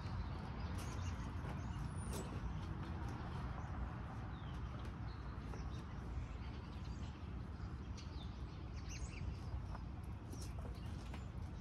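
Outdoor background noise: a steady low rumble with a few faint, brief bird chirps.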